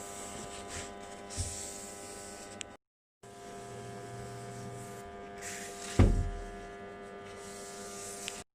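Small electric motor running with a steady hum, cut off abruptly by an edit about three seconds in and resuming a moment later. A single heavy thump about six seconds in is the loudest sound.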